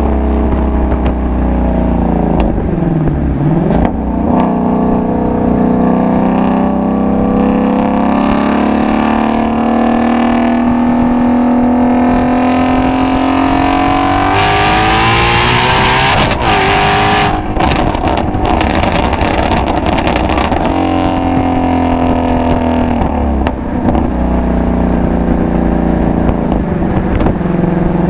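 Ford Shelby GT350's 5.2-litre flat-plane-crank V8 exhaust under way, the note climbing slowly, then surging hard and rising steeply under wide-open throttle about halfway through. Straight after the surge comes a run of sharp cracks, and later the revs drop briefly twice, as at gear changes.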